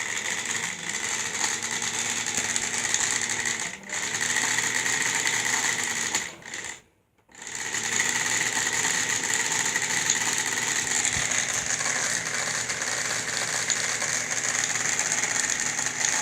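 Small electric motor running steadily with a high whine. It dips briefly about four seconds in, stops for about a second near the middle, then starts up again.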